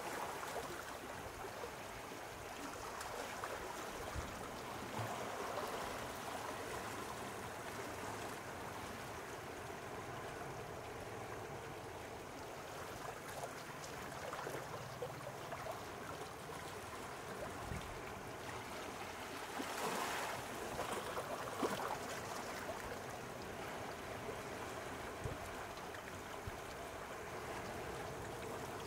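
Gentle sea waves washing and lapping at the shore in a steady wash of water, with a slightly louder surge about twenty seconds in.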